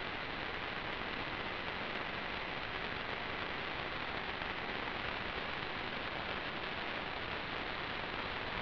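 Steady static hiss from an analog FPV video link's audio channel, with a faint high steady whine underneath.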